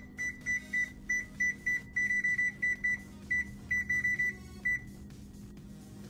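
Whirlpool electric range's oven control panel beeping at each key press as the oven is set to preheat to 450 degrees. There are about twenty short, high beeps in quick succession, ending after about four and a half seconds, over a steady low hum.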